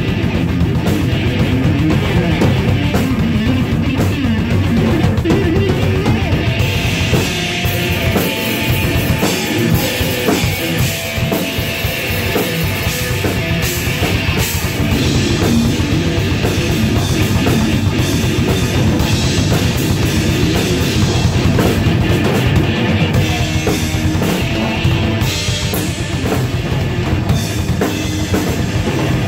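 Electric guitar and full drum kit playing heavy metal together, loud and dense, with cymbals washing loudest through the middle.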